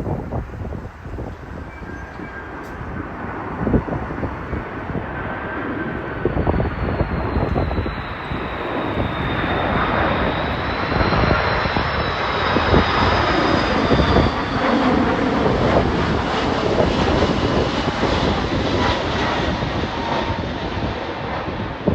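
Qantas Airbus A330-300 jet engines on arrival: a whine that grows louder toward the middle and stays loud, dipping slightly in pitch as it passes, over heavy gusting wind on the microphone.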